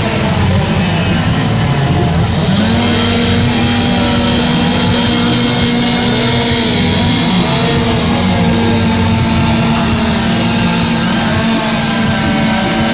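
Chainsaw running at high revs while carving; its engine note drops briefly about two seconds in, then climbs back and holds steady.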